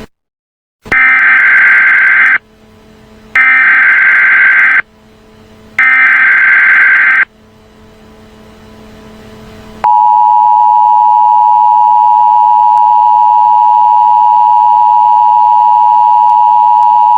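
Emergency Alert System header and attention signal. Three bursts of SAME digital header data, each about a second and a half long, are followed, starting about ten seconds in, by the steady two-tone EAS attention signal.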